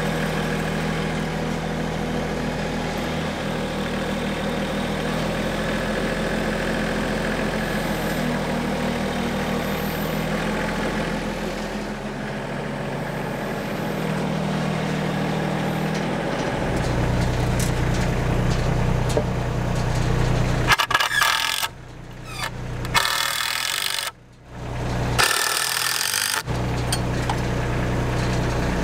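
Compact tractor engine running steadily, its note dropping lower about two-thirds of the way through. Near the end the sound twice cuts out abruptly for a moment.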